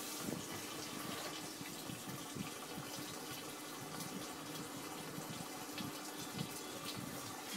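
Samsung washing machine taking in water: a steady rush of water running into the drum, with a faint steady hum and small irregular ticks.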